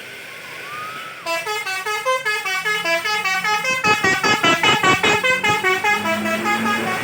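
Tour bus 'telolet basuri' musical horn playing a fast tune. Short notes step up and down several times a second, starting about a second in.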